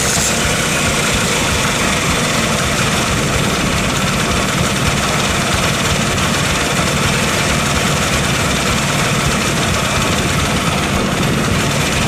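Vespa PX 125 E's two-stroke single-cylinder engine kick-started, catching right at the start and then idling steadily.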